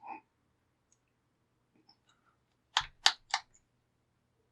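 Three sharp clicks in quick succession, about a quarter second apart, roughly three seconds in, from handling a padlock and its tools, with a faint soft sound near the start.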